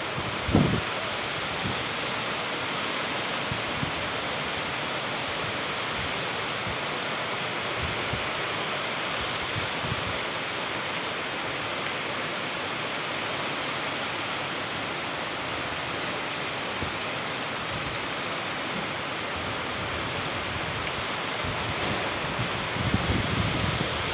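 Heavy rain pouring steadily onto the ground and roofs, an even hiss. A short low thump comes about half a second in, and a few low bumps near the end.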